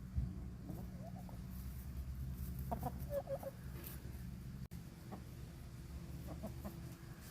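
Chickens clucking in short, scattered groups of calls over a steady low hum.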